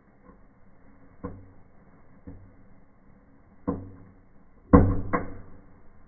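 Small indoor fireplace firework (a red Knallbonbon cracker) burning with sparks and going off in sharp pops: two faint ones, then a louder one, then two loud bangs in quick succession near the end.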